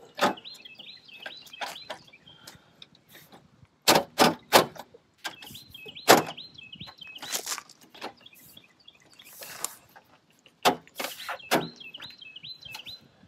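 Plastic honeycomb lower grille being pushed and fitted into a pickup's front bumper opening by hand: a series of sharp plastic clicks and knocks, some in quick pairs and threes. A small bird chirps in short repeated phrases in the background, three times.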